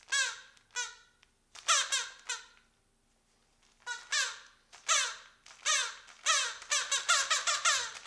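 Squeaker in a purple plush bird toy, squeezed over and over as the dog mouths it. Each short squeak falls in pitch. A few come singly at first, then after a short pause a run starts about four seconds in and speeds up near the end.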